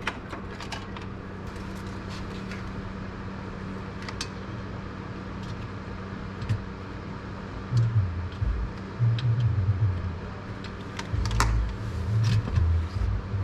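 Steady hum of running mining-rig fans and power supplies, with small clicks and rattles of cables and hardware being handled. From about eight seconds in come irregular low bumps and knocks.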